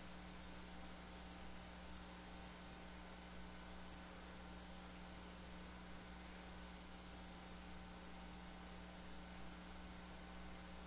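Quiet room tone: a steady low electrical hum with faint hiss.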